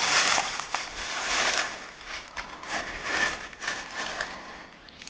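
Footsteps crunching and brush rustling as people walk an overgrown railroad track, coming in uneven swells of scraping, crackling noise.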